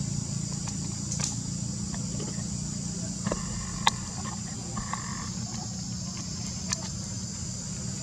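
Steady high insect chorus, like cicadas or crickets, over a low rumble. A few sharp clicks come through, the loudest about four seconds in, with faint short squeaky calls around three and five seconds in.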